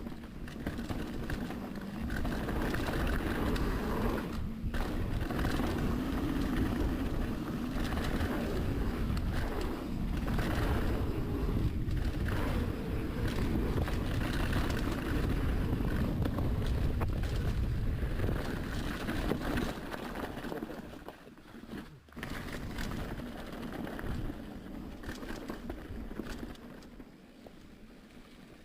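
Mountain bike ridden along a dirt bike-park trail, heard from the rider's own camera: wind rushing over the microphone with tyre noise and knocks and rattles from the bike over rough ground. It gets much quieter about three-quarters of the way through.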